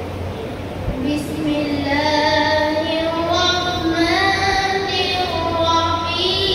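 A boy reciting the Quran in melodic tilawat style into a microphone, beginning about a second in with long held notes that slide between pitches. A steady low hum runs underneath.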